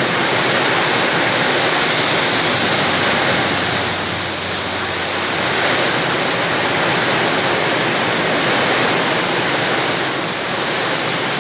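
Strong wind blowing: a loud, steady rushing noise that swells and eases only slightly.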